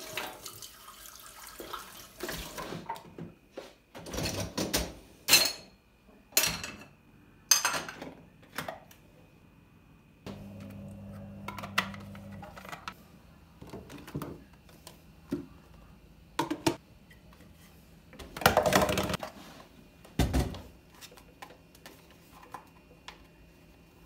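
Kitchen clatter: scattered clinks and knocks of dishes and utensils being handled, with a short low hum about ten seconds in and a brief rush of noise, like running water, about three quarters through.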